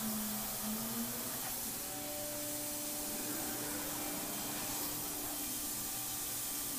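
Thermwood five-axis CNC router at work routing holes in a polyethylene part: a steady hiss of compressed air blowing on the cutter over a machine hum. The hum shifts to a higher pitch between one and two seconds in.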